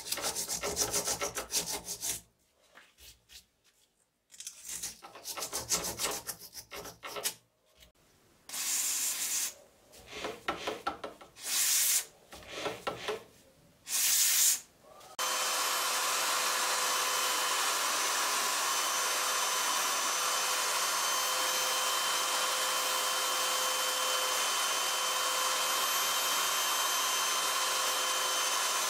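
Electric drill spinning a small pointed steel part of an ice axe while sandpaper is held against it by hand. For the first half the drill runs in short bursts with pauses, with a brief aerosol spray onto the part around the middle, then it sands steadily without stopping.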